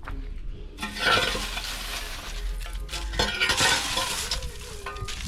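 Crackling, rustling noise of dry garden debris being handled, starting about a second in, over a low rumble of wind buffeting the microphone.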